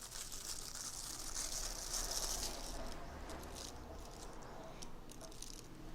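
Plastic packaging rustling and crinkling as small accessories are handled, giving way to scattered light clicks and taps about halfway through.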